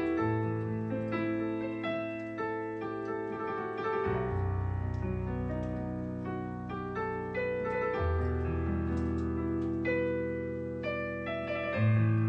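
Slow, gentle piano music: a low bass note held and changed about every four seconds, with a quiet melody of single notes above it.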